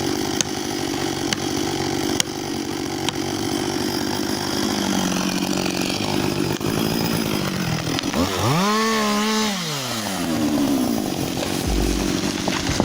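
A two-stroke chainsaw runs steadily under cut. About eight seconds in it revs up sharply, holds high with a slight wobble, then drops back about two seconds later.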